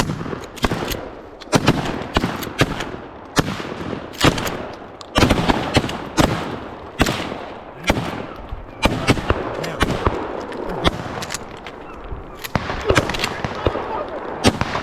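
A long, rapid, irregular volley of rifle shots from several deer hunters firing at a running deer, about two shots a second. The shots vary in loudness, some near and sharp, others farther off, each trailing a brief echo.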